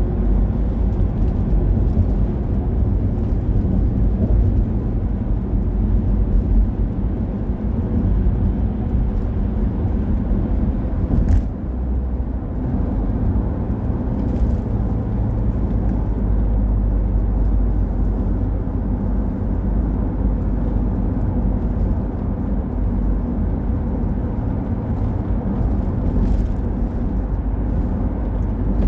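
Road noise inside a moving car as picked up by a dashcam: a steady low rumble of engine and tyres. There is one sharp click about eleven seconds in.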